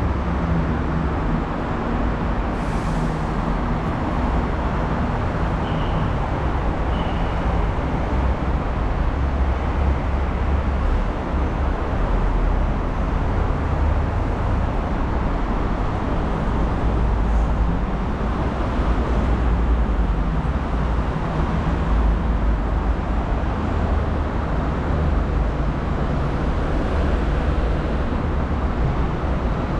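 Steady road traffic noise with a low rumble, vehicles passing continuously.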